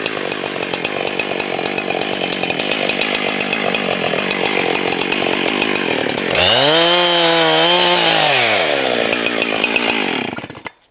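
Chainsaw running at full throttle, cutting through dead ash. About six seconds in, a loud creaking groan rises in pitch, wavers and falls away over two to three seconds, then the saw cuts off near the end.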